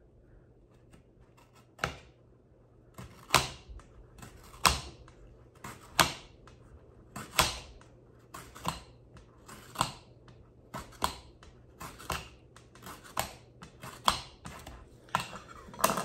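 Leather skiver's blade shaving a leather strap thinner in about a dozen short scraping strokes, roughly one a second, coming a little quicker near the end.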